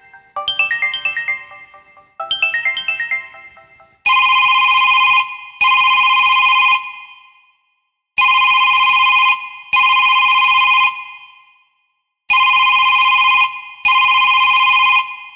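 Samsung Galaxy S2 ringtones. A short arpeggio of decaying, bell-like notes plays twice. About four seconds in, a different ringtone starts: a steady electronic ring of two long tones, repeated three times with pauses.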